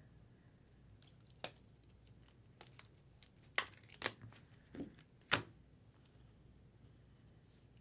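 Chrome trading cards and a foil pack wrapper handled by hand: a handful of short, sharp crinkles and snaps, the loudest about five seconds in.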